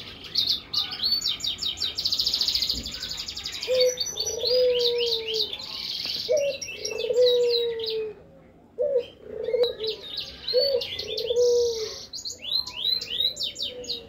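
Caged red siskin mule, a finch hybrid, singing a fast twittering song of rapid trills and chips in bursts, with a short pause just past the middle. Underneath, a dove coos four times in slow, low notes from about four seconds in.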